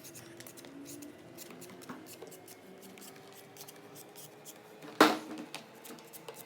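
Close-miked eating of sour fruit: a run of crisp, irregular crunching clicks, with one loud crunch about five seconds in.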